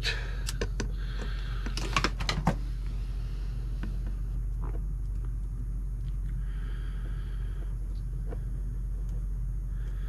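A few sharp plastic clicks and knocks of hands working at a new coffee maker, strongest in a quick cluster about two seconds in, with fainter ticks after, over a steady low hum.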